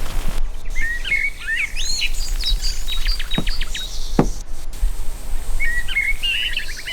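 Songbirds singing: two spells of chirpy, warbling phrases, the first with a quick run of repeated notes in the middle.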